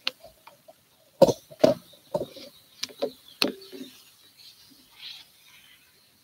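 Several sharp knocks and light clatter, spread over about four seconds, as a wooden cutting board and dishes are handled and set down on a kitchen counter, followed by fainter rustling.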